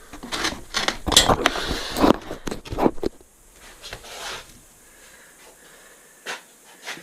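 Hand tools and metal parts being handled: about three seconds of clattering, knocking and scraping, then a few separate clicks.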